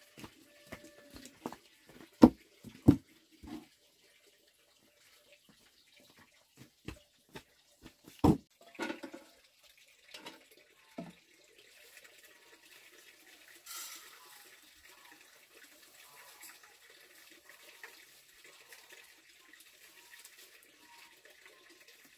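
Scattered sharp knocks of wood, the loudest about two and eight seconds in, then from about twelve seconds a faint steady hiss with light scraping.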